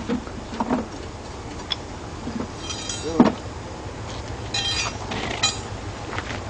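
Building-site sounds while concrete wall panels are being set: a steady low hum with scattered knocks, a few metallic clinks about three seconds in and again near five seconds, and brief distant voices.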